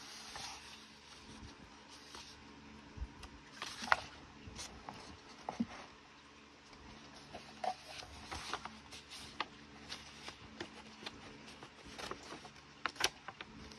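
Pages of a paperback coloring book being turned and handled: soft paper rustling with a few brief, sharper crackles, one about four seconds in and several near the end.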